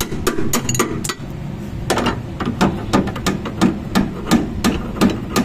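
Hammer striking a steel drift held against a rusted-in suspension control-arm bolt: a few quick light taps, then steady blows about three a second from about two seconds in. The bolt is seized in its bush by rust.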